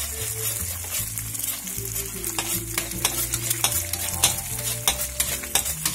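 Egg whites sizzling in hot oil in a wok while a metal spatula slides through them in straight strokes. The spatula scrapes and clicks on the wok many times over the steady sizzle.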